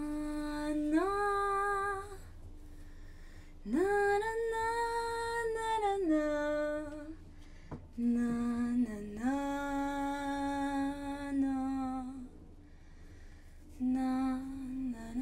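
A woman's voice humming a slow, wordless melody in long held notes, with short pauses between phrases.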